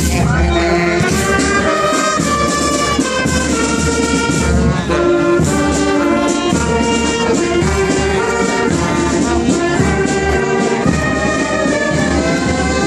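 Marching band of flutes, saxophones and trumpets playing a tune as it marches past.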